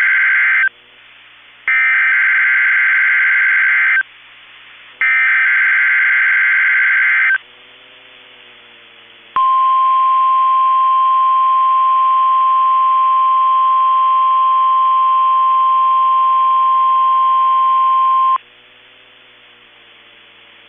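NOAA Weather Radio EAS/SAME header: the end of one burst of buzzing digital data tones, then two more bursts of about two seconds each, a second apart. After a short gap comes the 1050 Hz warning alarm tone, one steady high tone held about nine seconds that cuts off suddenly. Together they signal a Required Weekly Test of the warning system.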